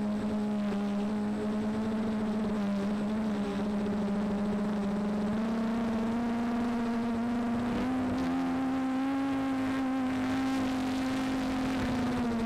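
Small electric multirotor's motors and propellers buzzing steadily in flight, the pitch rising a little about halfway through and then holding.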